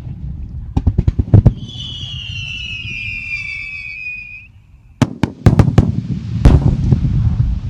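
Fireworks going off: a quick string of sharp bangs about a second in, then a high whistle lasting about three seconds. From about five seconds in come more loud bangs, followed by crackling.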